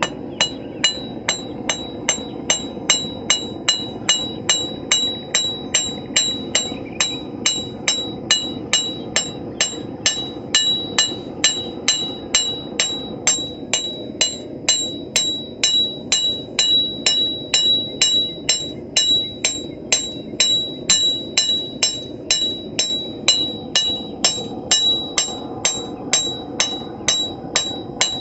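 Blacksmith's hammer striking hot steel on an anvil in a steady rhythm, a bit over two blows a second, each blow ringing with a clear, high anvil tone: the metal being flattened out.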